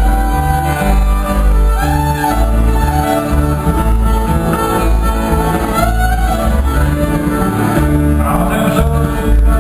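A band playing a country-style tune with fiddle and guitar over a steady pulsing bass, the fiddle sliding up and down between notes.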